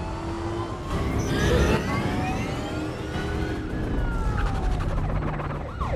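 Police sirens wailing, their pitches sliding up and down as several pass, over steady engine and traffic rumble in a film car-chase soundtrack, with music underneath.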